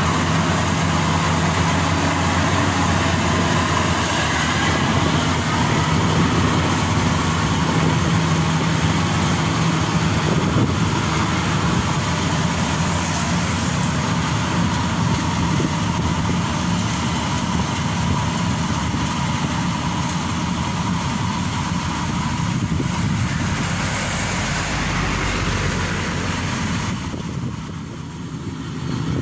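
Maxxi Bimo 102 rice combine harvester running steadily while harvesting: a continuous engine hum under the dense mechanical clatter of its threshing and conveying machinery. The sound briefly drops near the end.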